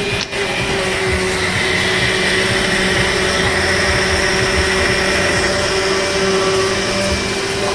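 Countertop blender running steadily at full speed, blending a coconut smoothie, its motor giving a constant whir with a steady hum under it.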